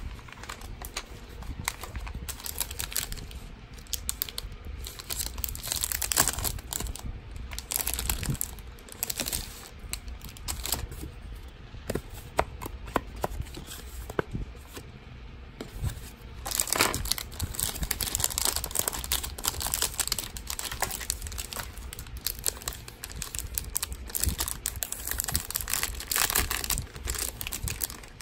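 Clear plastic stationery packets crinkling and rustling as they are handled and opened, in irregular crackly bursts that grow busier about two-thirds of the way through.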